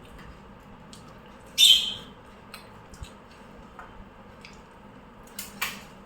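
Eating sounds while noodles are eaten: a short, loud hissing burst about a second and a half in, then scattered small clicks and ticks, with two sharper clicks near the end.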